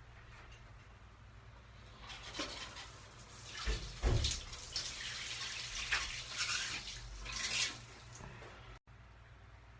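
Water running and splashing from a shower, starting about two seconds in and stopping about eight seconds in, with a few heavier thumps near the middle.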